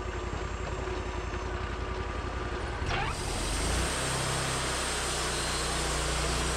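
Portable band sawmill's engine running steadily. About three seconds in there is a brief rising sweep, then the engine note changes and a steady hiss comes in over it.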